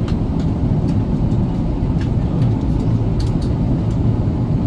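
Cabin noise of an Airbus A380 in flight, heard from a window seat over the wing: a steady, loud low rumble of engines and airflow.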